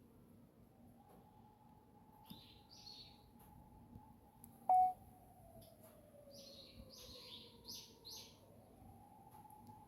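Faint siren wailing slowly: its pitch rises about a second in, sinks over several seconds, then rises again near the end. Small birds chirp over it in two short bouts, and a single sharp click-beep about halfway through is the loudest sound.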